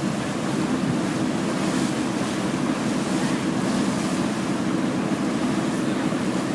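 Steady low drone of a boat's engine under a constant rush of wind and water, with wind buffeting the microphone.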